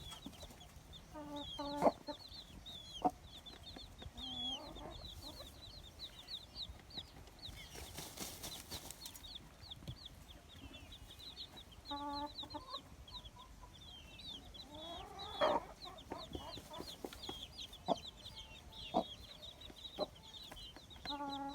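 Chickens: a continuous run of high chirps, with a few short low clucks and several sharp taps.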